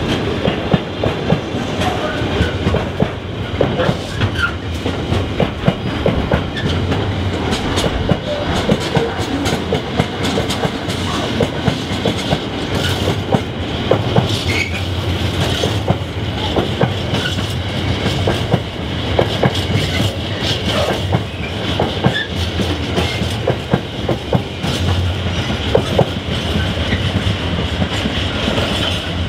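Container wagons of a freight train rolling past, their wheels clattering over the rail joints in a steady run of clicks and knocks.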